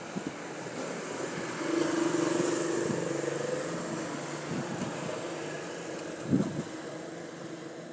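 A motor vehicle engine running past, growing louder about two seconds in and then slowly fading, with a sharp knock near the end.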